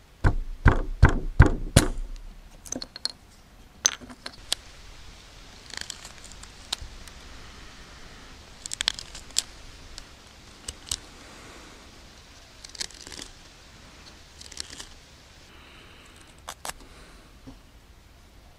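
About six quick knocks against a wooden plank bench in the first two seconds as the knife is worked into the wood, then a carving knife whittling a small piece of wood: short scraping cuts and clicks at irregular intervals.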